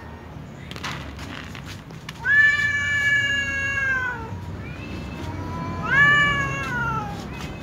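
Cats meowing: two long, drawn-out meows, the first held for about two seconds and dropping in pitch at its end, the second shorter, rising then falling.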